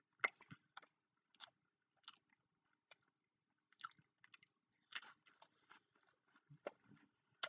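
A person chewing a bite of smoked lake trout: faint, irregular soft mouth clicks.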